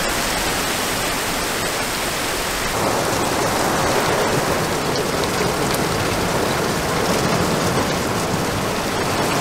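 Heavy rain pouring down: a steady, dense hiss of downpour with scattered drop taps, growing a little fuller about three seconds in.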